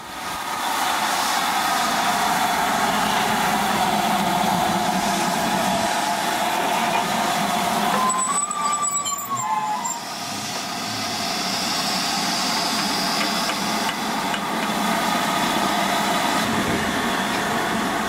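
LMS Black Five steam locomotive 44767 standing at the platform with a loud, steady hiss of escaping steam, with a brief dip about ten seconds in.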